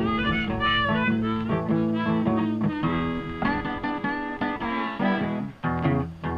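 Instrumental background music with plucked strings, notes changing steadily.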